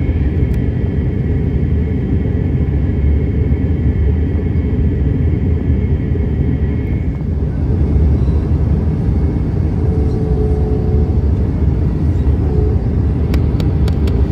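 Steady cabin roar of an Airbus A321-131 in descent, heard from a window seat: its IAE V2500-series engines and the airflow make a deep, even rumble. A faint high tone over it stops about halfway through, and a few light clicks come near the end.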